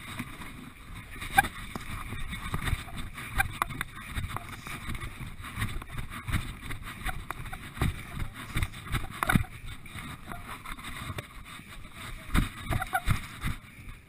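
Handling noise on a body-worn action camera while its wearer carries a log over grass: a low rumble with irregular knocks and rustling from movement.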